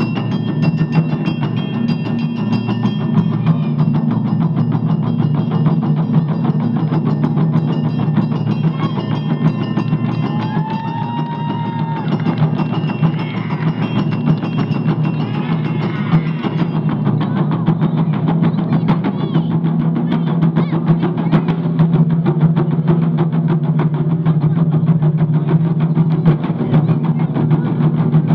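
Japanese taiko ensemble drumming on nagado-daiko barrel drums, a fast, dense run of strokes that keeps going without a break.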